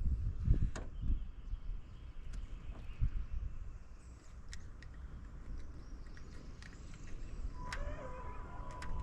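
Wind buffeting the microphone with a low, uneven rumble, a few light clicks, and a steady high beep starting near the end and lasting about a second and a half.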